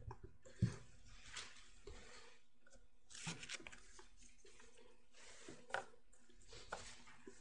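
Thin Bible pages being turned, faint rustling swishes every second or two, with a soft bump about half a second in.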